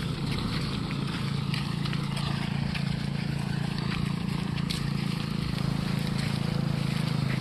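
Pickup truck engine running steadily at low revs as the truck crawls away, a continuous low drone, with a few light footsteps on wet ground.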